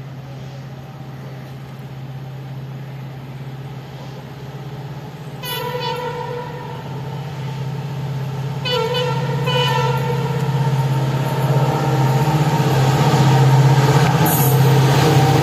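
WDP-4B diesel locomotive approaching at speed, its engine a steady low drone that grows louder. The horn sounds a short toot about five seconds in and two more toots around nine to ten seconds.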